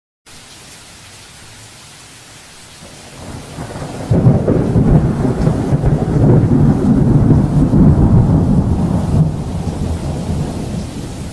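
A long rolling rumble of thunder builds about three seconds in, stays loud for several seconds, then fades away. Underneath it runs the steady hiss of heavy rain.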